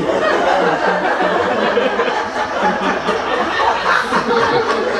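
Audience laughing steadily at a stand-up comedian's punchline.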